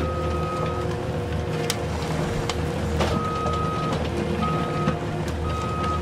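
Steady low engine-like hum with a high beep sounding four times, each of a different length: the engine-and-warning-beep sound of a toy excavator at work.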